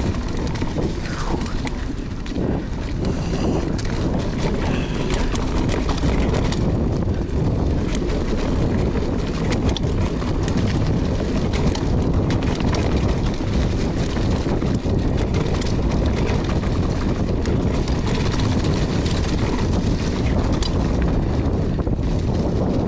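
Wind buffeting the microphone of a mountain bike rider's camera as the bike rolls down a rough trail, with frequent clicks and rattles throughout.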